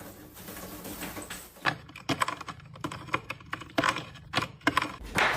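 A quick, irregular run of light clicks and taps, like keys being pressed, starting about one and a half seconds in.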